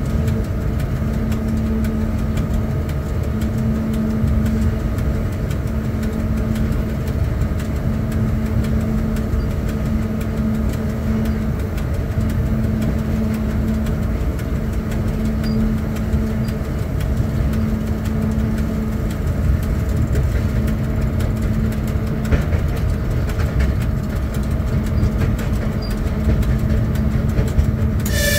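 Cab noise of a ChS4 electric locomotive under way: a steady low rumble of the running train, with a hum that swells and fades about every two seconds.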